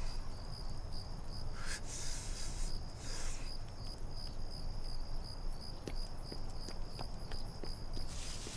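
Crickets chirping in a steady, pulsing trill, over a low rumble, with two brief hissing rustles about two and three seconds in.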